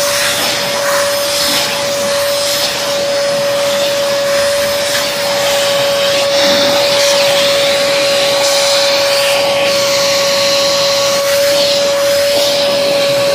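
Vacuum cleaner running steadily with a constant motor whine, its suction hiss rising and shifting as the nozzle is drawn through a cat's fur.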